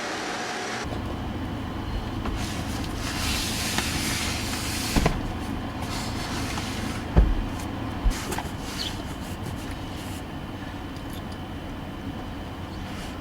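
Steady low rumble of a vehicle in motion, with a few sharp knocks or thumps, the loudest about seven seconds in.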